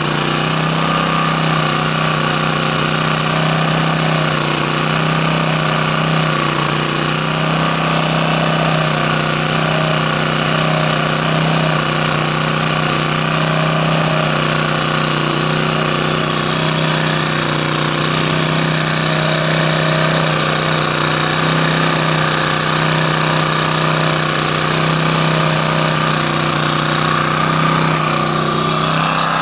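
Champion 1800/1400-watt portable generator engine running steadily on half choke, struggling to pick up fuel after eight months of sitting.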